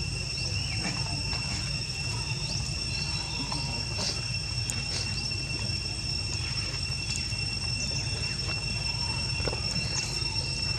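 Steady high-pitched drone of insects in two even tones, over a low rumble, with scattered faint clicks and rustles of macaques moving over dry leaves and gravel.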